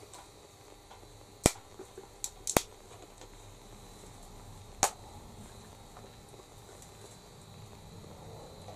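A few sharp clicks and knocks from a plastic soda bottle and a drinking glass being handled and set down: one about one and a half seconds in, a quick cluster of three a second later, and one more near five seconds.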